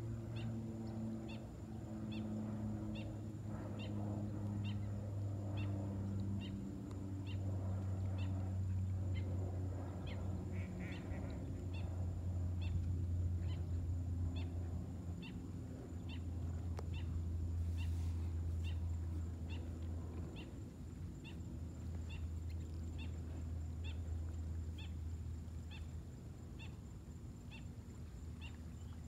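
A high chirp repeating evenly, a little more than once a second, over a steady low hum.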